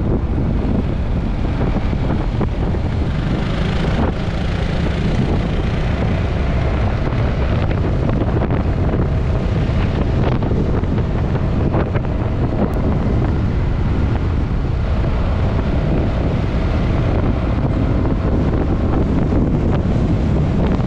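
Steady wind rush buffeting the microphone of a camera on a moving scooter, with the scooter's engine and tyre noise on the road underneath.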